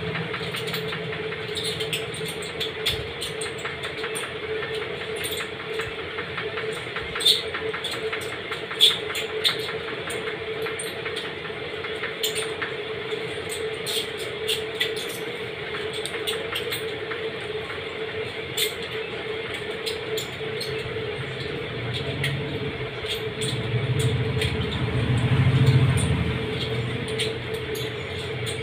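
Eating sounds: many small clicks of chewing and food being handled, over a steady droning hum. A low rumble swells and fades near the end, the loudest part.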